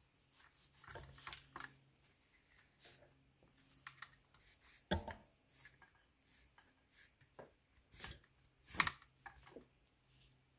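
Small hard parts being handled and worked on by hand: irregular taps, clicks and scrapes, with a sharp knock about five seconds in and another near the nine-second mark.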